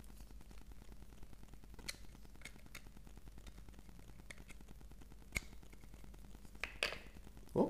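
Scattered light clicks and small knocks of a USB plug and cable being handled and pushed into a power bank, as a USB LED strip is connected. A short, louder low sound comes near the end.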